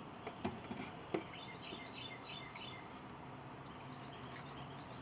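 A few light knocks in the first second or so, with a bird chirping a quick series of high notes just after, over faint steady outdoor background noise.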